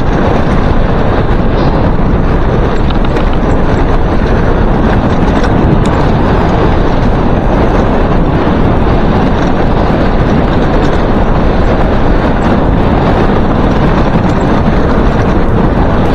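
Wind buffeting the microphone and mountain-bike tyres rumbling over a gravel track at speed, a loud, steady rush of noise.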